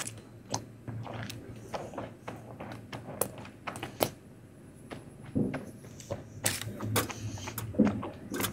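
Close-miked eating sounds: irregular wet smacks and mouth clicks of someone chewing Indian sweets.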